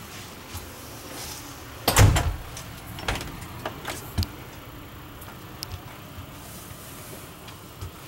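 An RV interior door being opened: a loud knock and rattle about two seconds in, followed by several lighter clicks and knocks.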